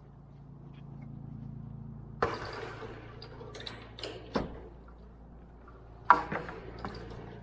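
Wire fencing being handled and pulled down: three sharp clanks about two, four and six seconds in, with lighter rattles between, over a low hum.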